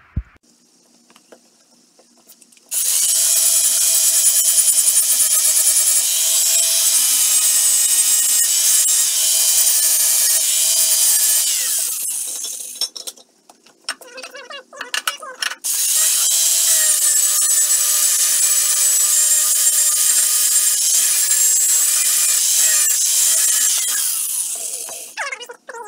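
Angle grinder grinding down a damaged cast-iron leg-bracket tab and old bad welds on a wood-stove base. It runs in two long passes of about ten seconds each, with a steady motor whine over the grinding noise. There is a short break about halfway, where the whine falls as the grinder slows.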